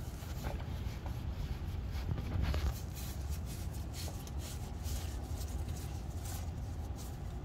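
Nitrile-gloved hands turning a new spin-on oil filter onto its mount, with soft rubbing and scattered light scrapes and clicks, over a steady low rumble.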